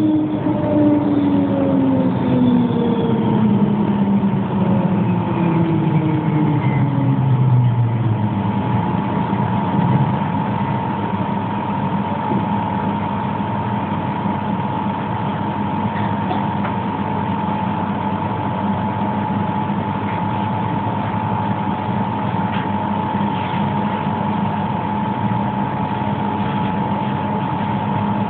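Pesa 120Na tram's traction drive whining down in several falling tones as it brakes to a stop over the first eight seconds. After that the tram stands with a steady hum and a high steady tone from its onboard equipment, heard from inside the car.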